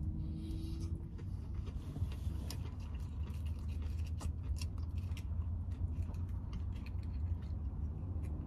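Someone chewing food and handling a paper food wrapper or sauce packet, giving many small scattered clicks and crackles. A steady low rumble runs underneath.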